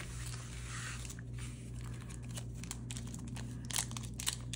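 Foil Yu-Gi-Oh booster pack being handled, its wrapper crinkling faintly with a few light clicks and a couple of louder crinkles near the end, over a steady low hum.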